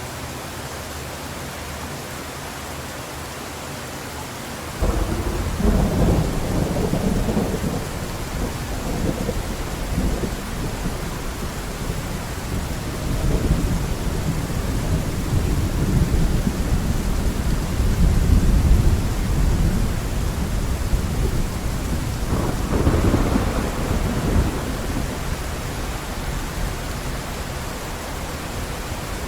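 Heavy rain falling steadily. About five seconds in, thunder breaks in suddenly and rolls on as a long, loud rumble, swelling again a few times before it eases near the end.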